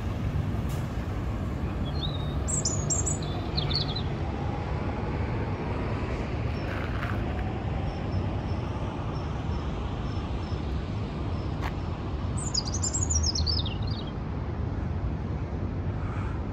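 Small songbird chirping in two short bouts, the second a quick run of notes falling in pitch, over a steady low rumble of city street traffic.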